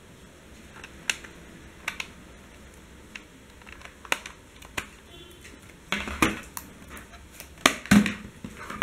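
Scattered sharp clicks of a USB cable's plugs being pushed into a laptop port and into an external DVD writer, then a louder cluster of knocks and rattles as the drive and cable are handled, about six seconds in.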